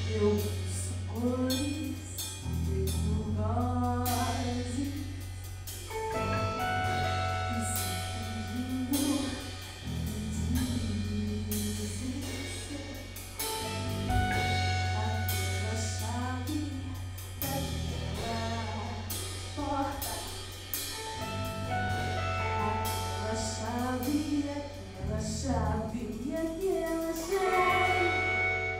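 Live band playing a song: a woman singing over electric guitar, electric bass and a drum kit with cymbals.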